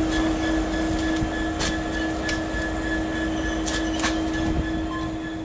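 EWS Class 66 diesel locomotive passing close by, its two-stroke V12 engine giving a steady drone with a strong steady tone. A few sharp clicks come through, and the sound slowly gets quieter toward the end.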